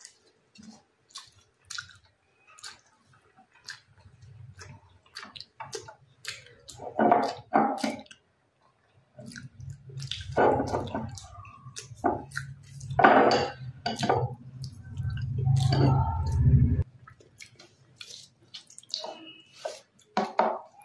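A person chewing a mouthful of food close to the microphone, with many short wet smacks and squelching mouth sounds. The chewing comes in several louder stretches in the middle over a low rumble, then drops back to lighter smacking near the end.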